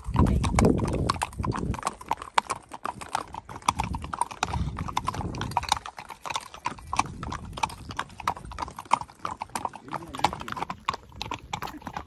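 Hooves of several Criollo horses clip-clopping as they walk, an uneven, overlapping run of sharp hoof strikes, several a second.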